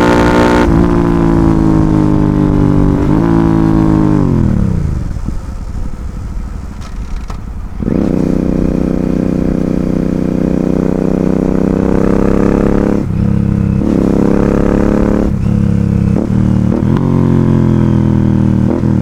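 Royal Enfield Continental GT 650's 648 cc parallel-twin engine through an Ixil aftermarket exhaust, on the move. The pitch falls as it slows in the first few seconds and it runs quieter and lower for a few seconds. Near the middle it pulls loud again with slowly rising revs, broken by several brief dips in the later part.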